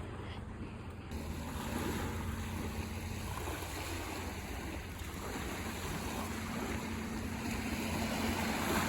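Sea waves washing in, a steady rushing surf, with a faint low hum underneath.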